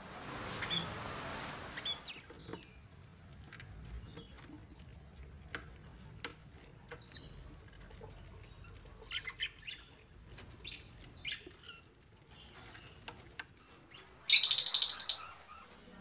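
Caged budgerigars chirping softly, with scattered small clicks and taps and a short rustle at the start. A loud burst of shrill calls comes near the end.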